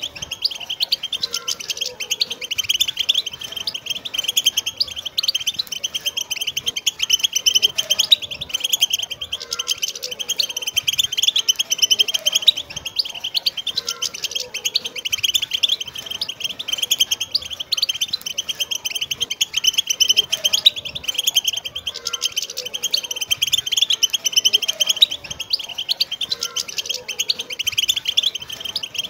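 A flock of wild European goldfinches singing and twittering together in a dense, unbroken chorus of quick, bright chirps, trills and tinkling notes.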